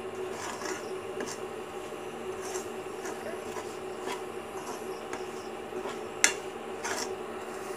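A steel ladle stirs and scrapes a thick ground-dal and spice mixture frying in a nonstick kadhai. Irregular rubbing scrapes are broken by sharp clicks as the ladle knocks the pan, the loudest a little past six seconds in. A steady low hum runs underneath.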